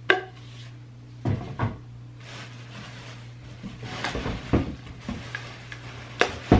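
Cardboard tubes and rolls of heat transfer vinyl being handled, knocking and scraping: a sharp knock right at the start, two dull thumps a second or so in, a cluster of scrapes and thumps around the middle, and two more knocks near the end, over a steady low hum.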